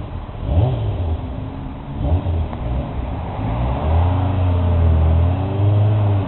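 Kawasaki ZZR1100's inline-four engine idling with a couple of short throttle blips, then revving, rising and falling, as the bike pulls away near the end.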